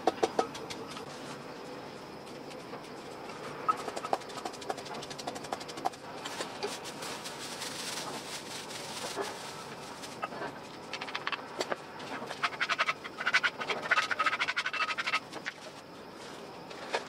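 A wooden pestle strikes a clay mortar a few times at the start. Then hands knead and toss a minced meat-and-herb mixture in a plastic basin, giving wet squelching and quick clicking that is busiest a little past the middle.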